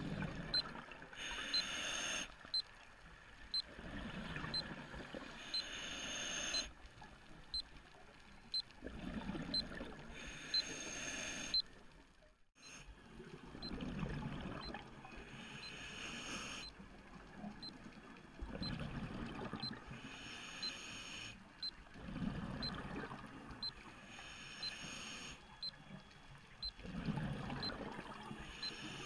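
Scuba diver breathing through a regulator underwater: a hissing rush of exhaled bubbles about every four to five seconds, with quieter sounds in between.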